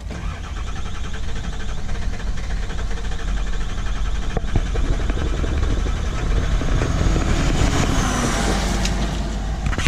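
Ford Super Duty's 7.3 Powerstroke diesel truck engine, a steady low rumble.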